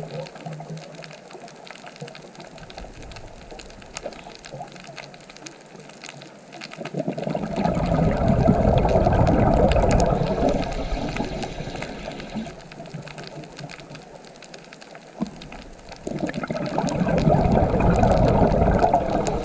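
Underwater bubbling from a scuba diver's regulator exhaust as the diver breathes out: two swells of several seconds each, about seven seconds in and again near the end, with quieter gaps and faint scattered clicks between them.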